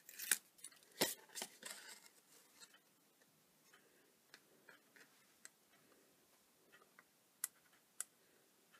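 Card stock being handled: light clicks and taps of die-cut card against a craft mat, a few in the first two seconds, the loudest about a second in, and two more near the end, with only faint ticks between.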